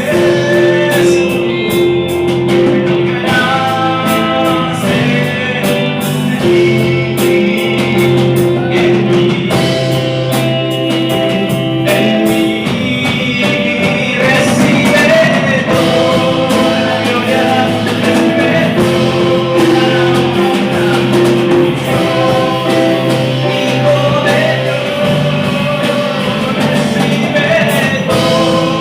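Music: a song sung over guitar and held chords.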